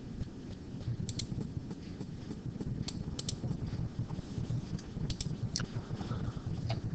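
A few short, sharp clicks from computer use, several in quick pairs, over a low steady rumble of room noise.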